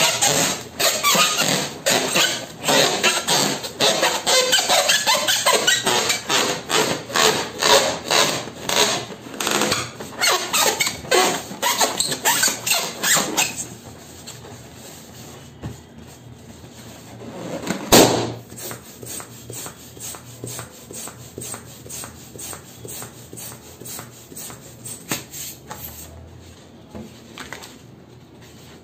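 Hands rubbing and squeezing an inflated latex balloon: loud rubbing strokes about two to three a second, dropping much quieter after about 13 seconds. A single sharp bang about 18 seconds in as a balloon pops, then fainter rhythmic rubbing.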